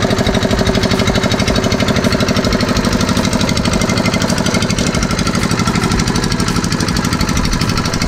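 Small engine of a cable-pulling winch running steadily, with a fast, even knocking beat of about ten pulses a second.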